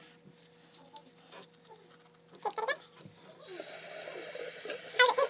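A bathroom sink tap is turned on about three and a half seconds in, and water runs steadily into the basin. A toddler makes short vocal sounds twice, once before the water starts and once while it runs.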